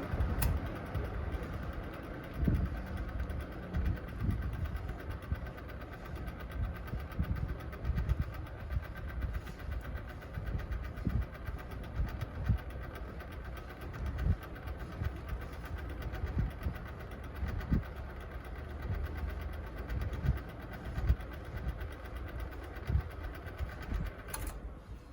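1999 Wind Chaser 20BF box fan running: a steady motor hum with irregular low thumps and knocks from a motor that has some issues. A sharp click comes near the end, and the sound then drops quieter.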